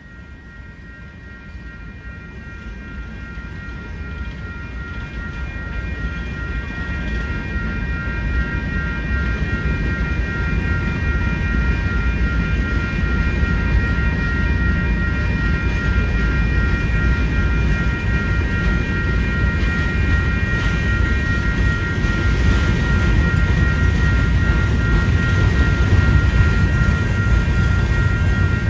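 Slow Union Pacific freight train rumbling past, growing louder over the first ten seconds or so and then staying loud. A steady high-pitched ringing runs through it.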